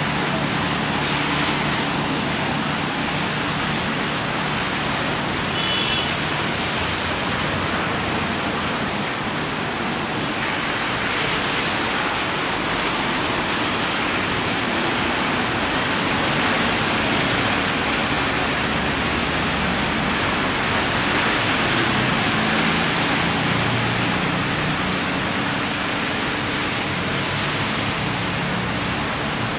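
Heavy rain falling steadily, an even hiss, with the low hum of cars passing on the wet road near the start and again near the end.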